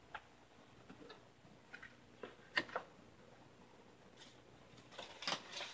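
Faint, scattered clicks and taps of small objects being handled on a worktable. The loudest comes about two and a half seconds in, with a short flurry near the end.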